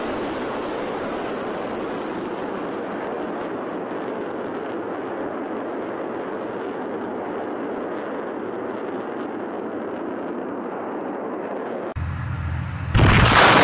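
Steady rushing roar of several missiles' rocket motors as they climb away. About twelve seconds in it cuts to a deeper rumble, then a much louder rocket roar starts suddenly near the end as another missile lifts off.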